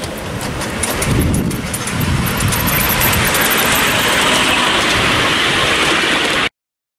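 Miniature railway train rolling past on the track, with rumble and clatter from its wheels and a steady hiss that grows stronger about two seconds in. The sound cuts off suddenly near the end.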